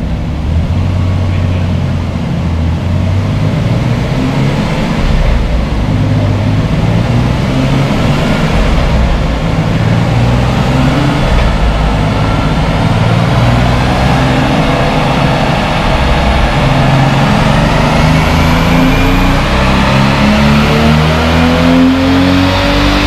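Car engine running on a chassis dynamometer at a steady speed. In the last several seconds the engine note climbs steadily as a dyno pull begins.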